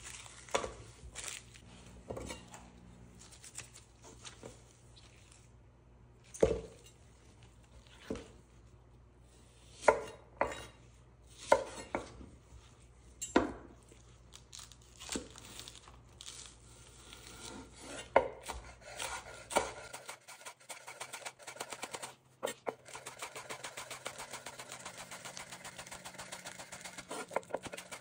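Chef's knife on a wooden cutting board: single, widely spaced knocks at first, then from about two-thirds of the way through a fast, even run of chopping as green onions are sliced thin.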